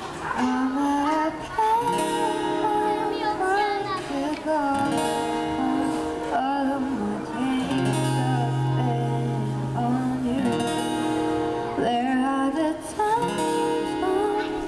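Acoustic guitar strumming chords while a female voice sings over it, performed live.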